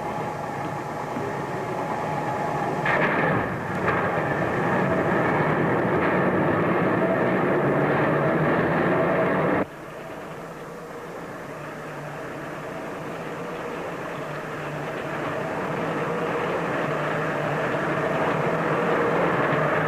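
Subway train running, its rumble with a steady whine growing louder. It breaks off abruptly a little under halfway, then builds up again.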